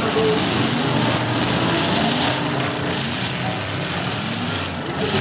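Demolition derby cars' engines running and revving, their pitch rising and falling, with a steady background of noise.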